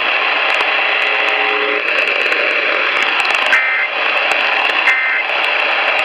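Eton weather radio's speaker giving a steady loud static hiss, with two short two-tone data bursts just over a second apart in the second half: the EAS/SAME end-of-message code that closes the NOAA Weather Radio alert.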